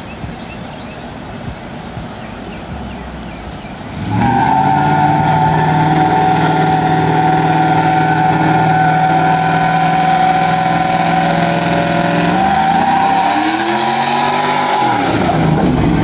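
Pontiac Trans Am's LS1 V8 held at high revs in a burnout, with a long steady tyre squeal that starts suddenly about four seconds in. Near the end the engine revs up once and falls away.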